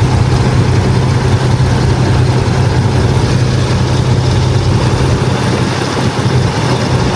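2005 Dodge Ram's 5.7-litre Hemi V8 idling steadily with a low, even hum, running smoothly on its newly replaced PCV valve.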